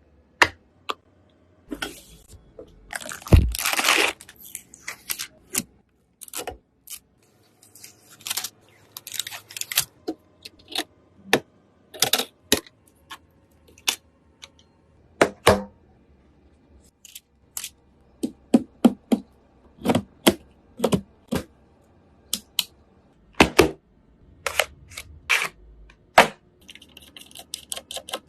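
Computer parts being handled and fitted during a PC build: irregular sharp clicks, knocks and short scrapes of hard plastic and metal, with a quick run of ticks near the end.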